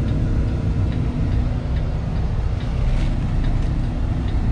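Kenworth T680 semi truck's diesel engine running with a steady low rumble.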